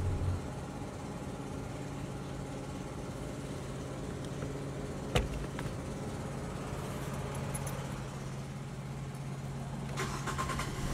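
2017 Nissan Sentra engine idling steadily, heard from inside the cabin, with a single sharp click about five seconds in and a brief patter of light ticks near the end.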